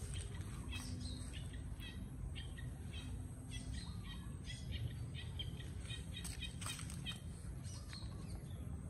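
Small birds chirping: many short, high chirps scattered throughout, over a steady low background rumble.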